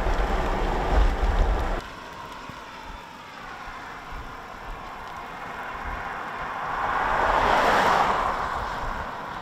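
Wind buffeting the microphone with a heavy low rumble that cuts off abruptly about two seconds in, leaving a quieter rushing hiss that swells and fades again near the end.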